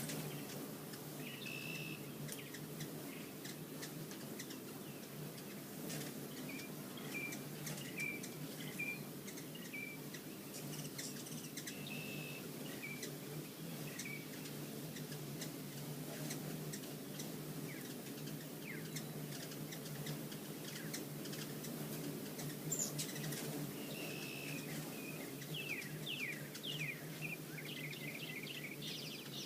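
Hummingbirds chirping in short, scattered chips, with a quick run of rapid chirps near the end, over a steady low hum.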